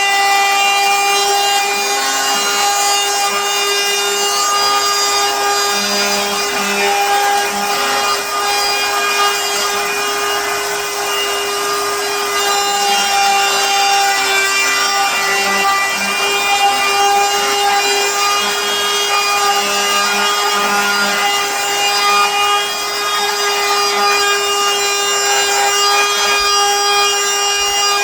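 Electric router in a router table running at a steady high whine while its bit cuts into a round wooden workpiece, with a rough rasping from the wood being routed.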